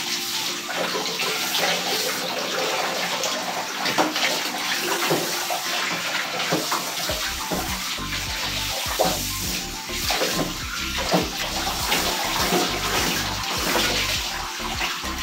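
Water spraying steadily from a handheld shower-hose spray comb onto a wet dog's coat and into a bathtub, with splashing. Background music comes in about halfway.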